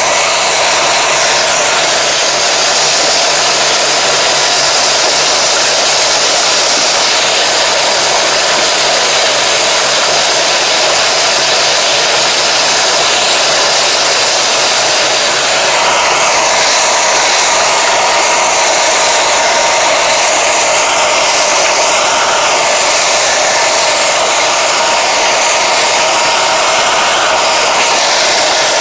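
Loud, steady rushing noise of a tractor-drawn tobacco ridging and film-mulching implement at work, heard from a camera mounted on the machine, with a faint wavering higher tone joining about halfway through.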